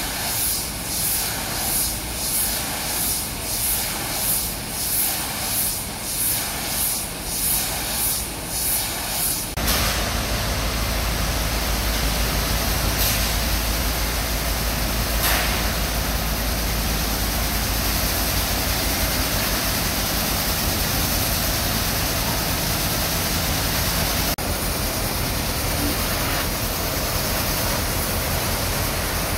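High-pressure water jet blasting against a steel ship's hull: a dense, loud hiss of spray over a low engine drone from the washer's pump. For about the first ten seconds it pulses roughly once a second; then it turns abruptly into a steadier, heavier rush with a strong low rumble, which eases near the end.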